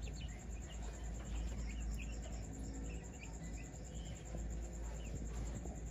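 Faint, scattered short high chirps over a steady low hum: a night-time animal background from insects or small birds.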